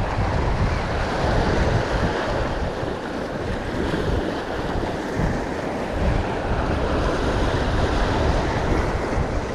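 Sea surf washing and breaking against shoreline rocks, with wind buffeting the microphone in a steady low rumble.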